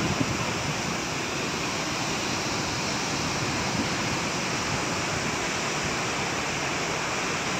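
Bogatha waterfall in flood, a wide cascade swollen by heavy rain: a steady rushing of water.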